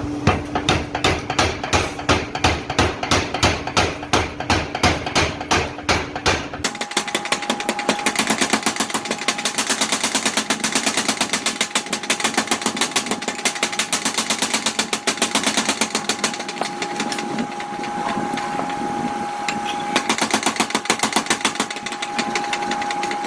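Mechanical power hammer pounding hot steel in quick, even blows, about four a second. About seven seconds in, the sound changes abruptly to lighter, thinner rapid blows over a steady hum.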